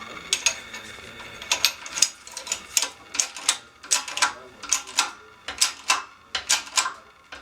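Press forcing a new bushing into an Evo 8 front control arm: a run of sharp metallic clicks, about three a second.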